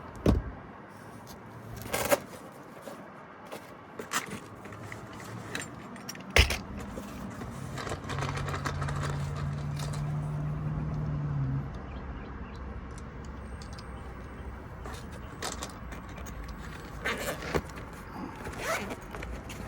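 Scattered sharp clicks and small metallic clinks and rattles of hand tools being handled while wiring a condenser fan motor. A steady low hum sets in about six seconds in, and a low droning tone sounds for a few seconds around the middle.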